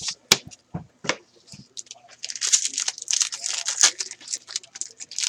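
A foil trading-card pack torn open and crinkled by hand, with dense crackling from about two seconds in. Before that come a few sharp clicks.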